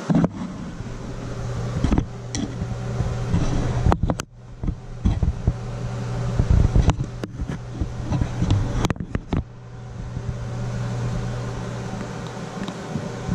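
Steady low hum with scattered clicks, taps and knocks of hands and tools working on a Delta shower valve's chrome trim and cartridge.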